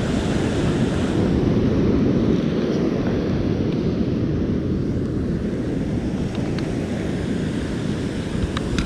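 Wind buffeting the microphone over the wash of breaking ocean surf: a steady, low rush of noise.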